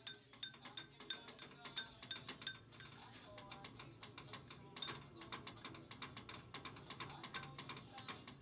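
A metal fork beating a mixture in a ceramic bowl, clinking against the bowl's sides about three times a second, each clink ringing briefly.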